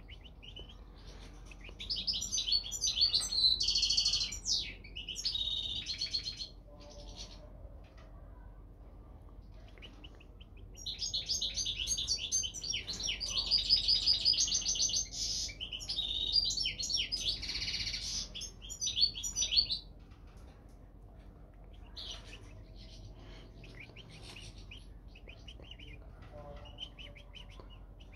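European goldfinch singing: two long bursts of rapid, high twittering song, the second longer, with a few faint chirps after it.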